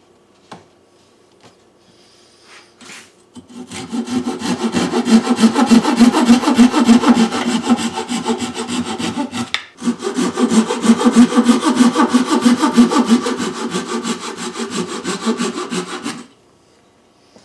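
Small fine-toothed handsaw cutting through a wooden dowel in quick back-and-forth strokes, trimming off a glued-in dowel plug. The sawing starts a few seconds in, breaks off briefly about ten seconds in, then resumes and stops shortly before the end.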